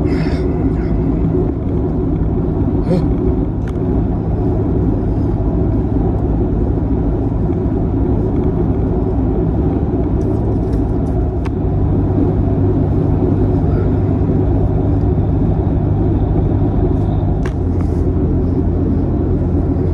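Car engine and road rumble heard inside the cabin while driving. The engine hum shifts pitch in a step about halfway through and again near the end.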